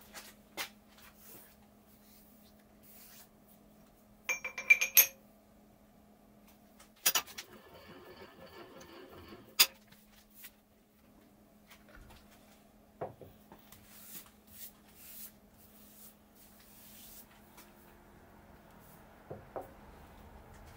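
Steel parts clinking and ringing against a milling machine vise as they are set in place: a quick cluster of sharp clinks about four seconds in, more around seven and ten seconds, then softer knocks. A steady low hum runs underneath.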